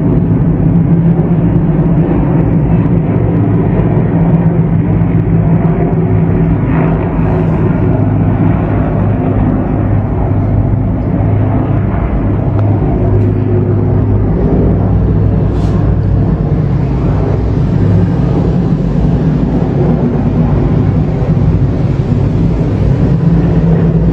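Several helicopters flying low overhead: a loud, steady low drone of rotors and turbine engines with a fast pulsing beat.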